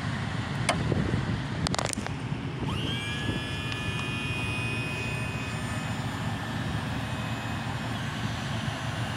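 Outboard motor running steadily on the boat's transom while the boat sits on its trailer. A few clicks come early, and about three seconds in a high whine slides up and then holds.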